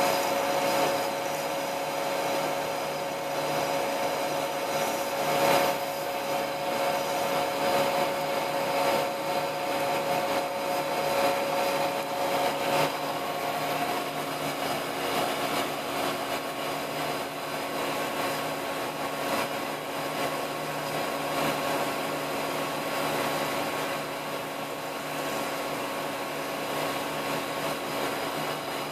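CNC milling machine running steadily while thread-milling a small four-start worm gear: a continuous machine whine over a whirring hiss. About halfway through, the whine drops away and a single higher whine takes its place.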